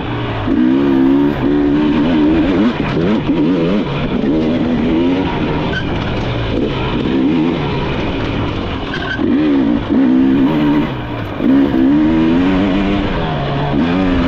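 Dirt bike engine under hard riding, its pitch rising and falling again and again as the throttle is opened and chopped through the gears.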